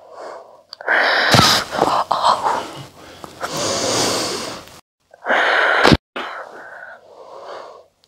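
A woman breathes out hard in loud, gasping breaths while a chiropractor presses on her upper back. There are two sharp cracks from her thoracic spine, about a second and a half in and again near six seconds.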